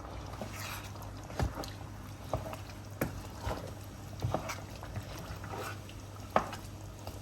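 A pot of tehari, rice and lamb in water and milk, simmering, with scattered irregular pops of bubbles breaking the surface over a steady low hum; the bubbles coming up are the sign that the liquid stage is ready.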